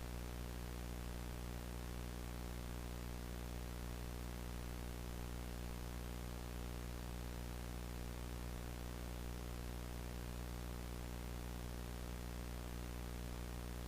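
A steady low electrical hum with faint hiss, unchanging, with no alert tones or voice.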